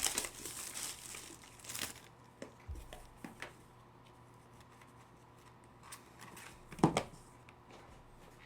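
Plastic packaging crinkling and tearing for about two seconds as a trading-card pack or box is opened, then light handling ticks and a single sharp knock about seven seconds in.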